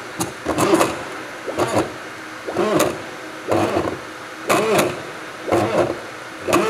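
The motor of a Clay Paky Sharpy Wash 330's zoom train driving short moves about once a second, each a brief whine that rises and falls, over a faint steady hum from the fixture.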